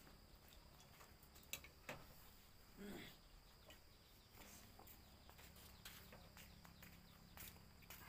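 Near silence: faint outdoor background with a few soft clicks, and one brief low call about three seconds in.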